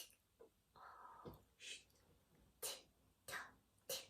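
A woman's quiet, breathy mouth sound effects for a sleepy bear: a short hum about a second in, then four quick breathy puffs.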